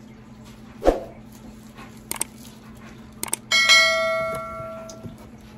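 Subscribe-button sound effect: two pairs of quick clicks, then a bell ding that rings out and fades over about a second and a half. A single sharp thump comes about a second in.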